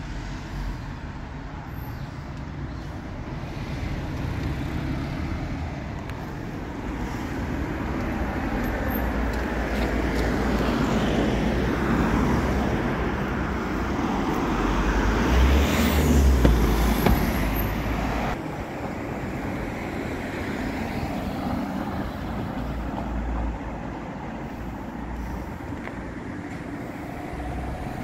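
Road traffic: a vehicle passes close by, growing louder over several seconds to a peak about sixteen seconds in, then dropping off sharply, over a steady low rumble.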